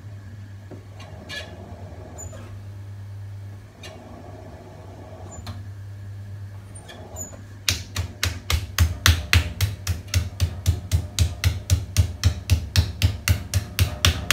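Hands slapping a lump of wet terracotta clay on a spinning potter's wheel, starting about eight seconds in and going on at about four slaps a second, patting it down into a mound to seat it on the bat for centring. Before the slapping there is only a steady low hum with a few faint clicks.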